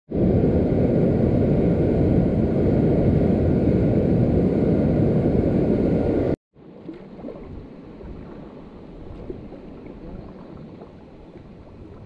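Loud, steady rush of a whitewater rapid pouring over and between boulders, which cuts off suddenly about six seconds in. After that there is only a faint, quiet wash of calm river water with a few small ticks.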